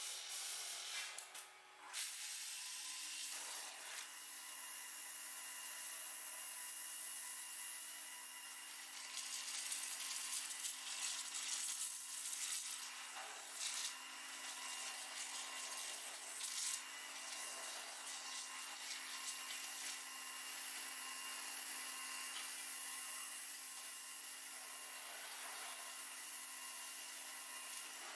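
AitalMac WJ5 5-axis waterjet cutting a stone slab: a steady high hiss from the abrasive water jet with a few steady machine tones beneath it. The sound dips briefly and comes back in full about two seconds in.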